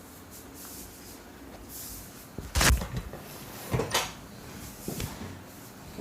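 Sharp percussive hits from a barber's oil head and body massage: a loud smack about two and a half seconds in, a quick cluster of smaller hits around four seconds, and one more about a second later.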